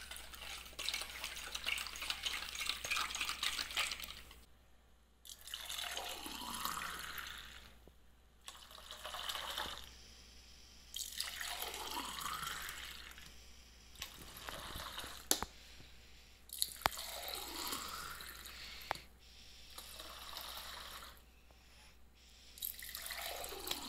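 Orange juice and soda stirred in a steel bowl, then poured from the bowl into a drinking glass: about five pours of a few seconds each, each with a pitch that slides as the stream runs, and a couple of sharp clinks of glass partway through.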